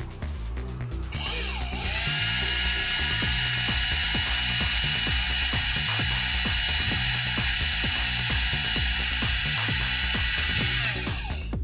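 Converted cordless drill's DC motor, fed 12 V from a bench power supply, spinning up about a second in and then running free with an empty chuck. It gives a steady high-pitched whine and spins down near the end, drawing about 1.8 A.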